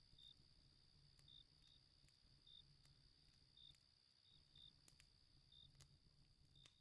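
Very faint night ambience of crickets: short chirps about once a second over a steady high trill, with a few sharp crackles of a wood campfire, mostly in the second half.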